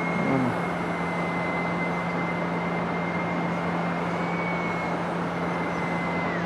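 Small electric RC airplane's motor whining steadily at full throttle, the pitch wavering slightly, then dropping away just before the end as the throttle comes back. A steady low hum and a broad hiss run underneath.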